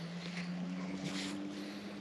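A boat motor's steady low hum, with a second, slightly higher tone joining about halfway through.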